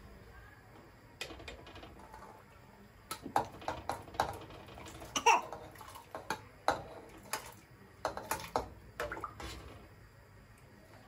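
Dishes and kitchenware being handled: an irregular string of clinks and knocks over several seconds, a few of them ringing briefly, with some water.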